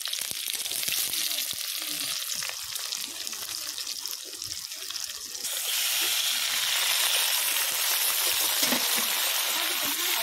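Sliced onions sizzling in hot oil in a wok, a steady hiss that gets louder and fuller about five and a half seconds in.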